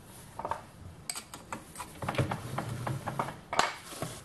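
Small metallic clinks and knocks, a dozen or so irregular ones, the loudest about three and a half seconds in, as hands handle the metal parts of a lathe and its belt-driven tool post grinder, with no motor running.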